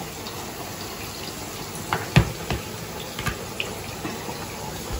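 Chicken kebab pieces deep-frying in hot oil in a kadai: a steady sizzle with a few sharp pops and crackles, the loudest about two seconds in.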